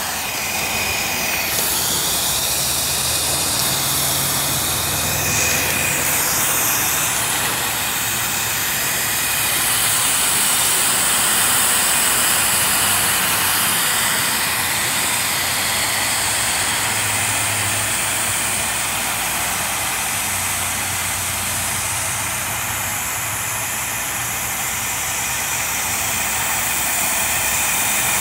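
Steady hiss of water running in through the float fill valve into the shallow basin, with a faint low hum coming and going underneath.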